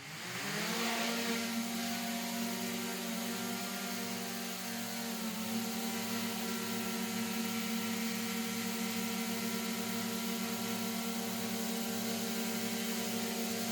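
DJI Mini 3/4 Pro drone propellers spinning up over about a second, then running at a steady speed: a steady whine of several tones over a hiss.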